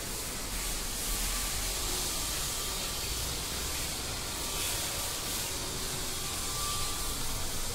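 Steady background hiss with a low rumble underneath, unchanging and without distinct events.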